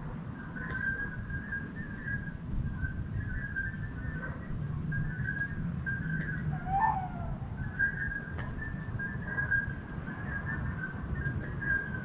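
Night-time countryside chorus: calling animals give a continuous pulsing trill in bursts about a second long, with one short whistled call about seven seconds in. A steady low rumble runs underneath.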